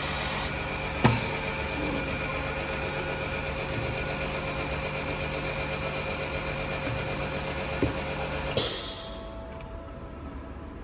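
Phone-screen lamination machine running with a steady hum and a few sharp clicks, then a short burst of hiss about eight and a half seconds in, after which it is much quieter.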